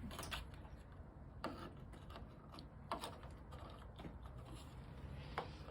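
Faint, scattered clicks and taps of metal deadbolt parts being handled and fitted into the door by hand, about five over a few seconds.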